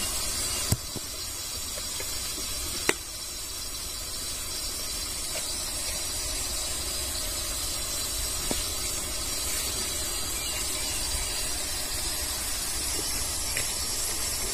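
Small wood fire burning in a brick-lined pit: a steady hiss with two sharp crackles early on, over a low rumble.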